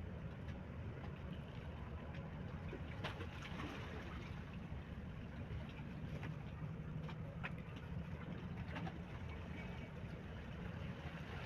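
Steady low rumble of a passenger ship's engines, with a haze of water and wind noise and a few faint ticks.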